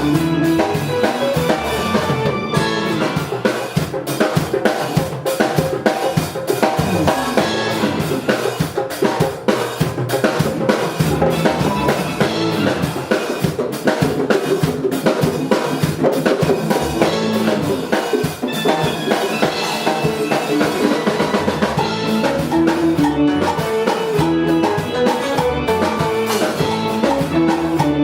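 Music with a drum kit playing throughout, bass drum and snare prominent among a dense, continuous mix.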